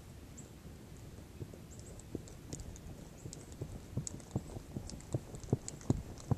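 Footsteps crunching through dry grass, faint at first and growing louder as someone walks closer, at about two to three steps a second.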